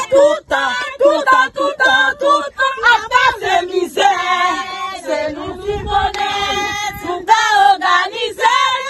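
A group of women singing together in short repeated phrases, with a few longer held notes near the middle.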